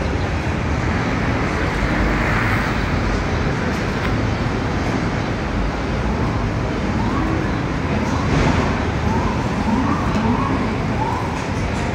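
Steady city street traffic noise. From about seven seconds in, a siren rises and falls over and over beneath it.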